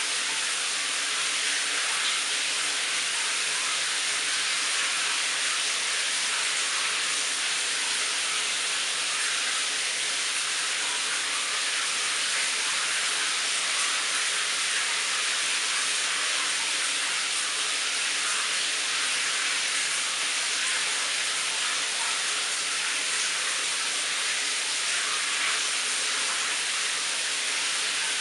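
Shower running: a steady, unbroken hiss of water spraying, even in level throughout.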